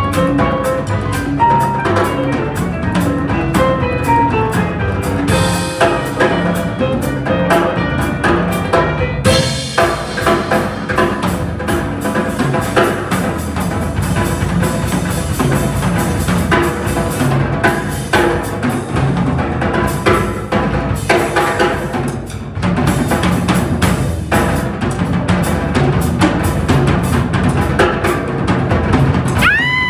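Live band playing an instrumental passage: piano with a drum kit and congas, the drum kit busy and prominent. Near the end a short rising whistle cuts through.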